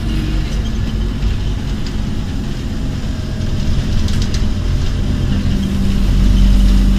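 Scania OmniCity double-decker bus's five-cylinder diesel engine running as the bus drives, heard from inside the lower deck as a steady low rumble. A droning note grows louder near the end.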